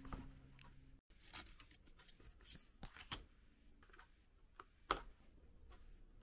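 Quiet handling sounds: a canvas tote bag rustling briefly, then light taps and clicks of fingers on a clear plastic phone case, with one sharper click about five seconds in.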